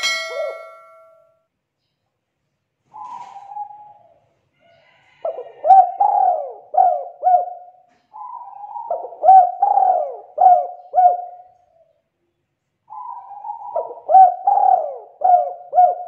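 Spotted dove cooing: three phrases of several low coos each, about 5, 8 and 13 seconds in, after a short single coo about 3 seconds in. A brief bell-like chime rings at the very start.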